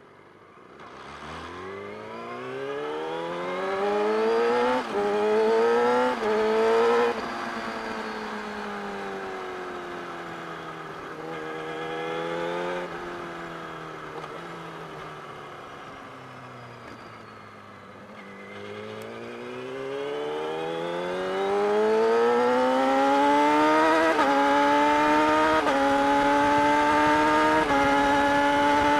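Yamaha R6 inline-four engine under the rider, accelerating hard through several upshifts with a short break at each gear change. It then winds down as the bike slows for about ten seconds, and pulls up through the gears again to a loud, steady high-rev run near the end.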